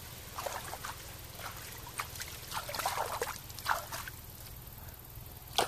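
Hands splashing and swishing in shallow pond water, a string of short irregular splashes, with a sharper splash near the end.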